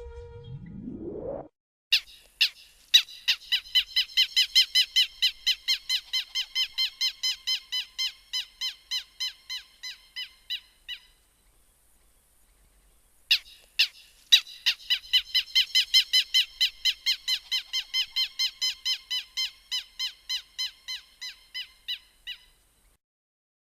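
Canary giving its alarm call: a few single sharp notes, then a fast run of short repeated chirps, about four a second. It comes in two bouts with a pause of a couple of seconds between them. A short rising sweep at the very start precedes the calls.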